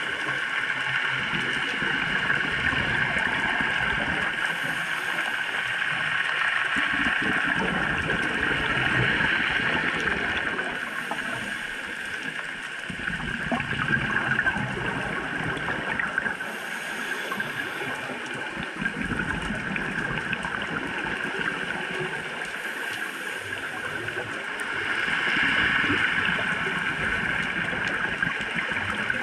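Underwater sound of a scuba diver breathing through a regulator: bouts of exhaled bubbles about every six seconds over a steady hiss.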